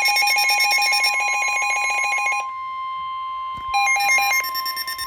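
Weather-alert tones: a steady single tone near 1 kHz, typical of the NOAA Weather Radio 1050 Hz warning alarm, held under a rapid pulsing electronic alarm beep. The beeping stops about two and a half seconds in and starts again about a second later with stepping pitches, while the steady tone carries on.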